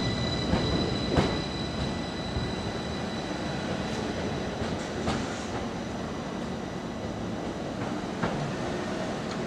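A Class 333 electric multiple unit pulls out of the platform and draws away, making a steady running noise. A high steady whine fades out in the first second or so, and a few clicks are heard along the way.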